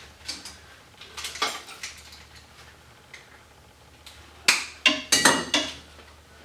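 Small parts of a dismantled arc-fault circuit breaker clicking and clinking as they are handled and pulled apart, with a louder cluster of sharp metallic clinks and knocks near the end.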